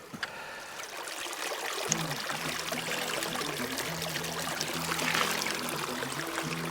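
A small mountain stream flowing and splashing over rocks: a steady rush of running water.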